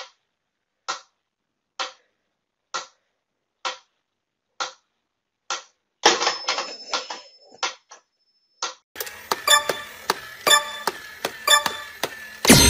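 Mechanical pyramid metronome ticking steadily, a little over one tick a second, with some brushing noise around the middle. About three-quarters of the way through, a denser, louder mechanical clatter of rapid clicks and ringing tones takes over, from a battery-operated crawling toy soldier, with a loud burst near the end.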